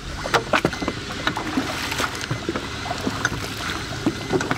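Irregular knocks and clicks of an inflatable dinghy's outboard motor being handled by hand, over a steady wash of water against the hull; the motor is not running.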